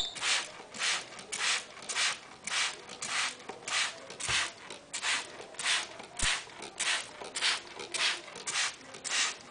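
Trigger spray bottle squirting water again and again, about two squirts a second, each a short hiss of mist.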